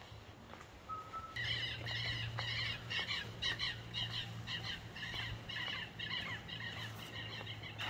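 Cloth squeaking against the plexiglass windshield of a Cessna Hawk XP as it is wiped back and forth, starting about a second and a half in and going on at about three squeaks a second.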